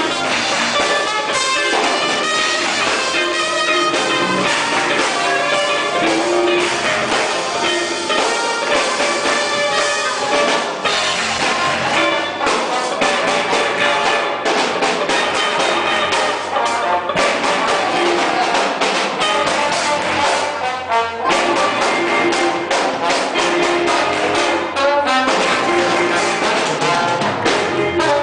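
Orchestra playing an instrumental piece, with trumpets and trombones carrying the melody.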